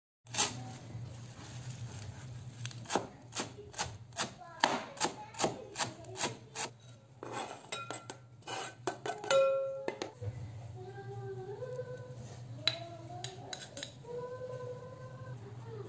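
A chef's knife chopping fresh parsley on a plastic cutting board: a quick run of sharp chops, then a longer scrape about nine seconds in as the chopped parsley is pushed off the board into a glass bowl. After that come quieter clinks and handling, with faint pitched sounds over a steady low hum.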